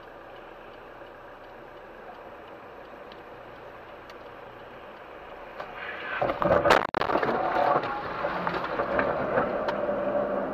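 Dashcam audio from inside a car driving on a rain-soaked road, a steady hiss of wet tyres and rain. About six seconds in the noise swells and a single loud crash sounds as the car meets a van cutting across in front of it. The sound breaks off for an instant, then louder wet-road driving noise carries on.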